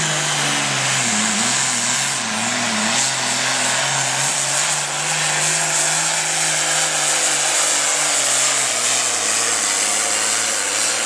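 Super farm pulling tractor's turbocharged diesel engine running loud at full throttle while dragging the weight sled. Its pitch sinks in the first second as the engine bogs under the load, wavers up and down for a couple of seconds, then holds steady.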